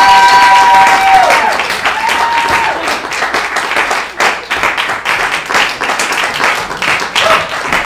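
Audience applauding with steady clapping. A long held pitched tone sounds over it at the start and cuts off about a second and a half in, and a shorter one comes about two seconds in.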